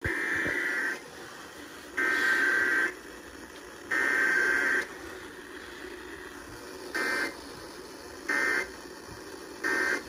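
Emergency Alert System SAME data bursts playing through an FM radio's speaker: three raspy, roughly one-second header bursts two seconds apart, then three short end-of-message bursts about a second and a half apart. It is a Required Weekly Test, sent as header and end-of-message only, with no attention tone or voice.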